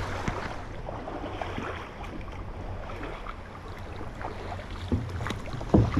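Wind rumbling on the microphone over the rush of flowing river water, with a sharp thump near the end.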